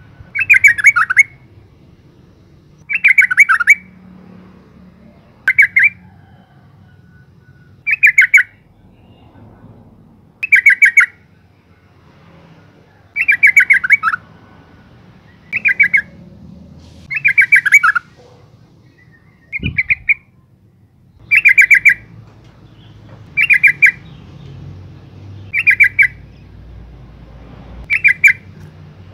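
Female yellow-vented bulbul giving its short, bubbling chattering call, repeated about every two seconds, each phrase a quick run of notes lasting under a second.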